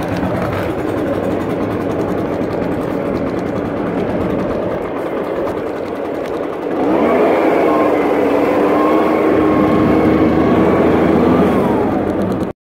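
Echo PB-580 backpack leaf blower's two-stroke engine running at idle, then throttled up about seven seconds in, its pitch rising quickly to a steady, louder full-power blowing sound that eases slightly just before it cuts off abruptly.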